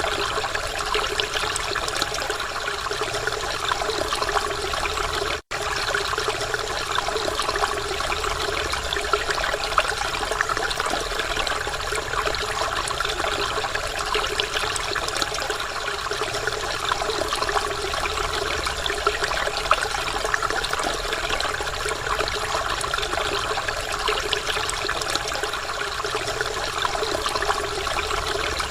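Waterfall: a steady wash of falling water, unchanging throughout, with a split-second dropout about five and a half seconds in.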